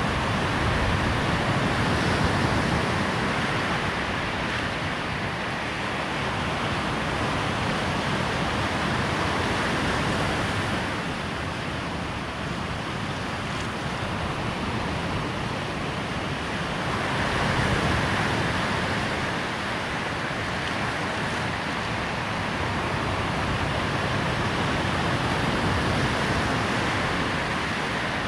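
Waves breaking and washing up on a sandy shore: a steady rushing noise that swells and eases every seven or eight seconds.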